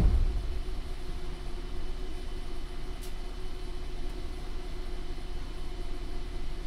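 Steady low hum with a few faint, steady whining tones inside a Tokyo Metro 08 series electric train car, with one faint tick about three seconds in.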